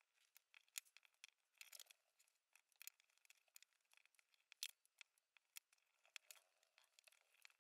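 Faint, scattered small clicks and ticks of a hex screwdriver turning small screws while fastening a brushless motor to a carbon-fibre drone frame arm, with a short scrape now and then.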